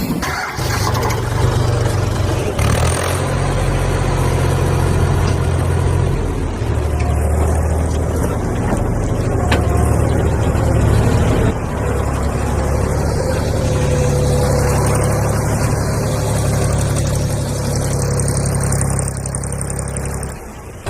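Heavy diesel engine running steadily under work, its low note shifting a couple of times as the load changes.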